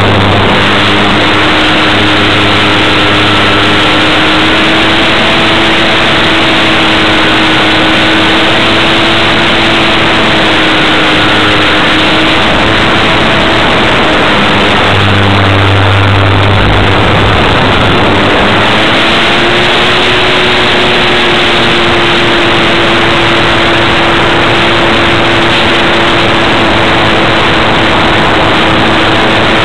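Onboard sound of a radio-controlled model Wilga aircraft in flight: loud rushing wind and the hum of its motor and propeller. The hum's pitch wavers, dipping and then rising again about two-thirds of the way through as the throttle changes.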